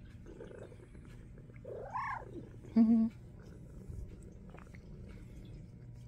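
Domestic cats purring steadily while being stroked, with one meow that rises and falls about two seconds in. A short, louder low-pitched call follows just under a second later.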